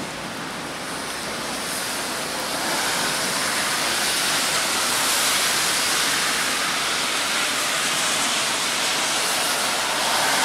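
Rubber-tyred Taipei Metro Wenhu line train running along the elevated guideway, a steady rushing hiss that grows louder about three seconds in and then holds.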